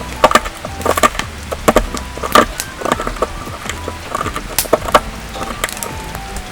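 Rock salt and peppercorns being crushed: a run of sharp, irregular cracks and crunches, several a second.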